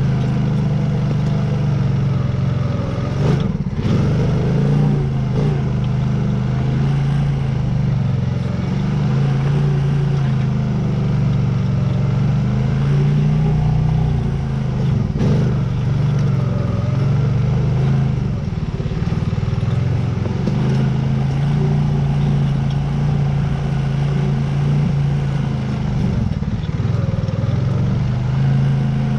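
2021 Honda Rancher 420 ATV's single-cylinder four-stroke engine running steadily under load while climbing a steep trail. There are two sharp knocks, about three and a half seconds in and again about fifteen seconds in.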